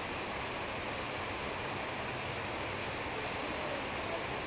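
Steady rush of water running through stacked fish-egg incubator trays, an even hiss that does not change.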